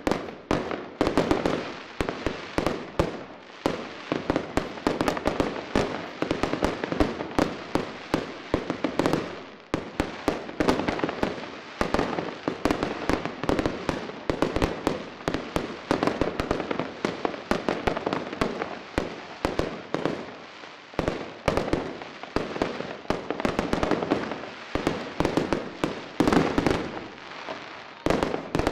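Fireworks display: a dense barrage of rapid bangs and crackling shell bursts, many reports a second, beginning suddenly and continuing without a break.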